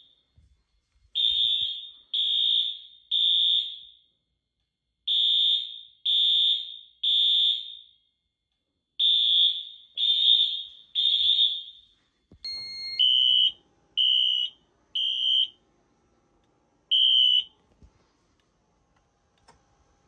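Wheelock fire alarm horns sounding the temporal-3 evacuation code: three high-pitched blasts about a second apart, then a pause, repeated three times. About twelve seconds in the horns stop, and four shorter, lower-pitched beeps follow in the same three-and-pause rhythm.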